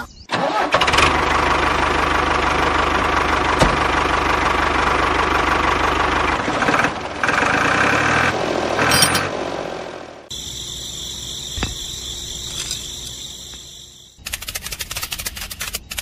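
A tractor engine starts about a second in and runs steadily. Its sound changes around the middle, and after about ten seconds a quieter, different steady sound takes over.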